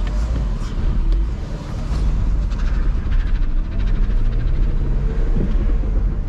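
Car running: a steady low engine and road rumble, with the engine note rising a little about four seconds in.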